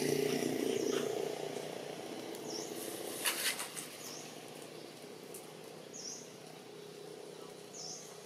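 Outdoor tree-canopy ambience: a short high bird call repeats about every two seconds. A low hum fades out in the first second or so, and two sharp clicks come about three seconds in.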